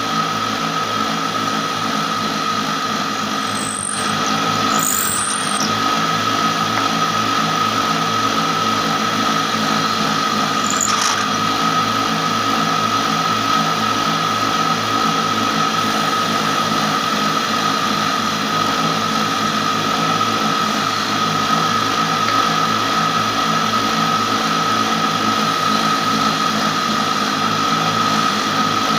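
Electric motor spinning a steel wood-splitting bit, running steadily with a high-pitched whine as wood is pressed against it.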